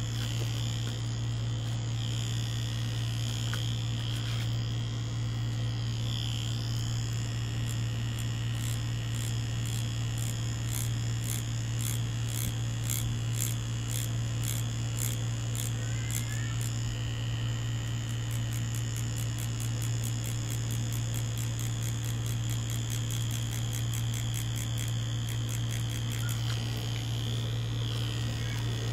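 Mummy Anubis tattoo machine running with a steady low buzz, its needle cartridge working ink into fake skin.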